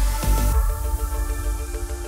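Electronic background music: a thumping beat drops out about half a second in, leaving held notes with a fast pulsing tone.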